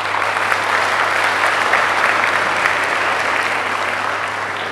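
Audience applauding in a large gym hall, swelling up at the start and beginning to fade near the end.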